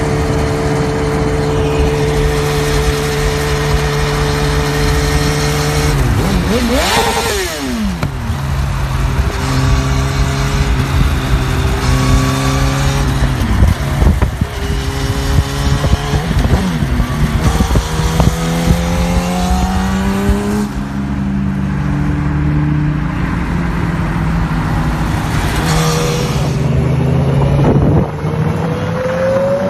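Yamaha inline-four sport bike running at a steady cruise, then accelerating hard through the gears from about a quarter of the way in: the engine note climbs and drops back at each upshift, several times over. Near the end a Honda CBR1000RR Fireblade's inline-four revs up with a rising note.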